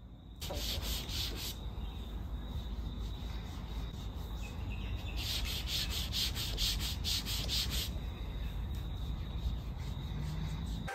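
Detailing clay bar rubbed over lubricated car paint, with quick back-and-forth strokes: a short spell near the start and a longer one from about five seconds in.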